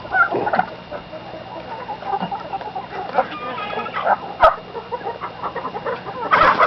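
A flock of chickens clucking and squawking in alarm as one is chased to be caught by hand, the calls scattered at first and turning into a louder burst of squawking near the end.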